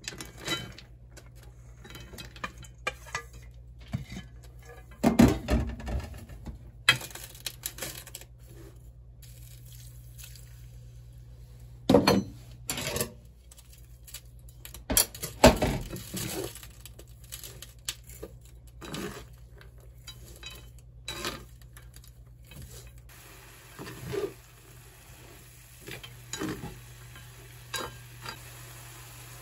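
Julienned carrots being tipped into and tossed around a stainless steel frying pan, with chopsticks and utensils knocking and scraping on the metal in irregular clatters, the loudest about 5, 12 and 15 seconds in. A steady low hum runs underneath.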